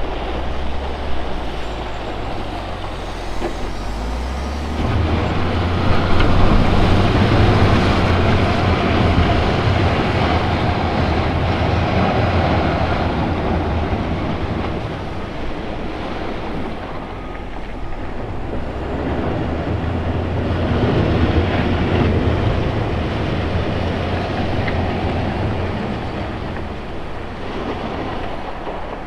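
Volvo L180F wheel loader's diesel engine running under load as the machine grades a gravel surface, with a broad rumble and rattle of machine and gravel. The engine swells about five seconds in, eases off about halfway through, and builds again before falling back near the end.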